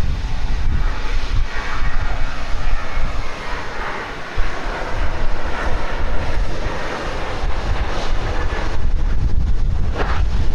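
Airliner engine noise that builds over a few seconds and fades away again, under steady wind rumble on the microphone.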